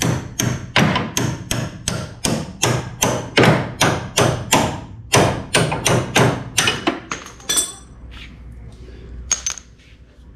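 Rapid hammer blows on metal, about three a second, working a stuck bolt loose under a VW Bay Window Bus during engine removal, slowing to a few single strikes near the end.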